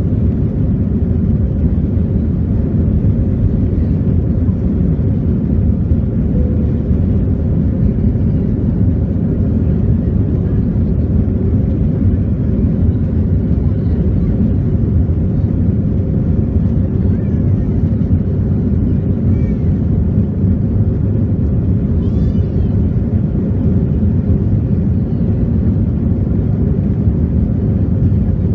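Airbus A321-200 jet airliner climbing out after take-off, heard from inside the cabin: the engines at climb power make a loud, steady, deep rumble with no change in pitch.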